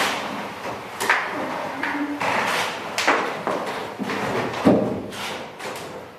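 A series of irregular knocks and thumps, roughly one a second.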